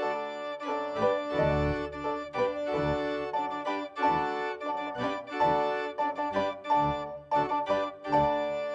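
Organ music: a quick run of notes over held chords.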